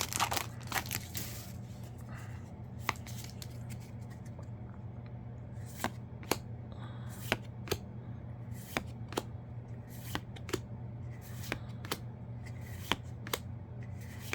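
Yu-Gi-Oh! trading cards being flicked through one by one, each card giving a short sharp snap, with a quick flurry of snaps at the start, over a steady low hum.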